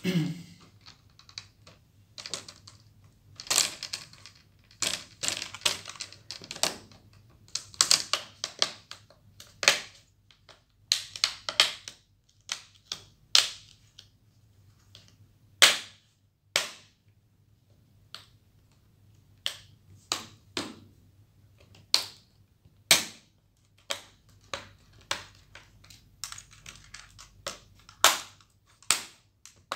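Plastic screen bezel of a Dell laptop being pressed back onto the display lid, its clips snapping into place in a long irregular series of sharp clicks, some coming in quick clusters.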